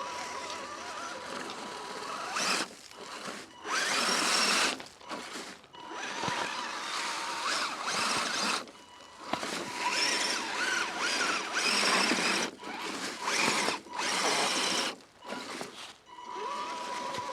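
Axial SCX10 Deadbolt RC crawler's electric motor and gear drive whining in repeated throttle bursts, each lasting one to three seconds. A thin steady high tone is left between the bursts.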